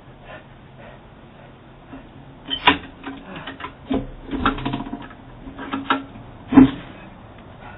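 A run of sharp, irregular knocks and clicks, several in quick succession, the loudest one near the end.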